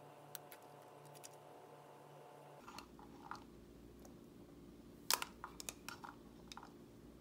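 Faint, scattered light clicks and taps of small objects being handled, over a steady low hum. A few sharper ticks come about five seconds in.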